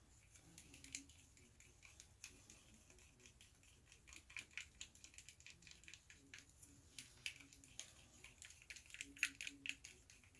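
Faint, irregular ticking and clicking of a paintbrush stirring airbrush paint in a small plastic mixing cup, tapping and scraping against the cup.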